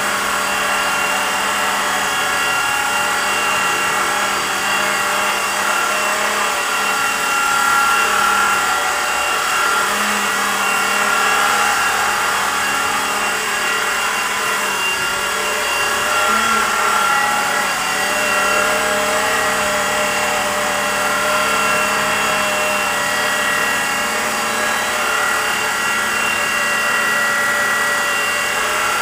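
Blade 120 SR micro RC helicopter in flight: its small electric main and tail-rotor motors give a steady whine over the rotor buzz, the pitch wavering slightly as it hovers and manoeuvres.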